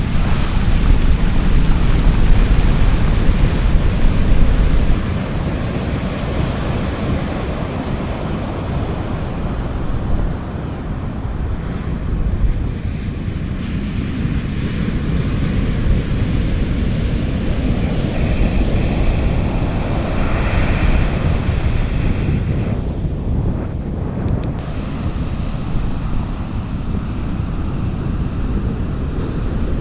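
Sea waves washing onto a beach in a steady surf hiss, with wind rumbling on the microphone, heaviest in the first five seconds. A wave's wash swells briefly about two-thirds of the way through.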